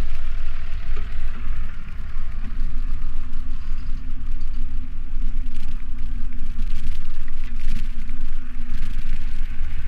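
Loud wind buffeting on a bicycle-mounted action camera's microphone while riding, a deep rumble that rises and falls unevenly, with a faint steady hum underneath.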